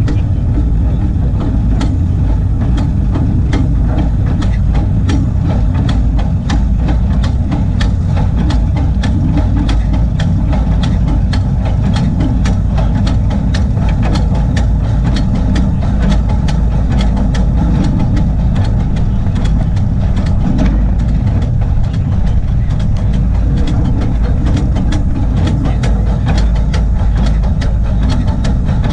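Small 24-inch-gauge Crown 4-4-0 coal-fired steam locomotive running along the track: a loud, steady low rumble with rapid, uneven clicking and clattering of the running gear on the rails.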